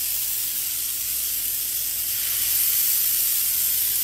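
Yoghurt-marinated chicken skewers sizzling in hot oil on a grill pan, a steady high hiss.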